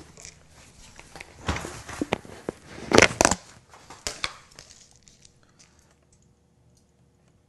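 Scraping and crinkling noises of food being prepared at a kitchen counter, several loud irregular strokes with the loudest about three seconds in, a few clicks, then quiet after about five seconds.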